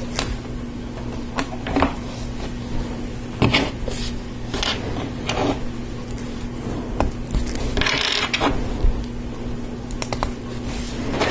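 Small plastic LEGO Technic parts clicking and rattling as they are handled and pushed onto axles, in scattered single clicks with a longer rubbing rattle about eight seconds in. A steady low hum runs underneath.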